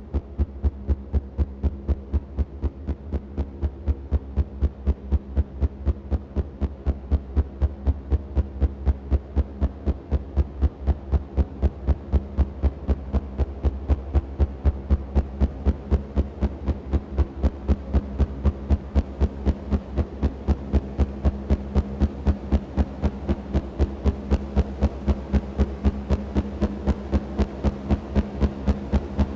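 Eurocopter EC135 helicopter hovering close by: its main rotor beats in an even, steady rhythm over the constant hum of its turbines and rotors.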